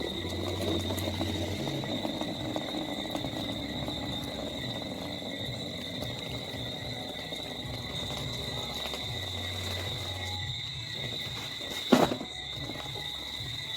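Crickets singing in a steady, even high drone, over a rough lower noise that fades after about ten seconds. A single sharp knock sounds near the end.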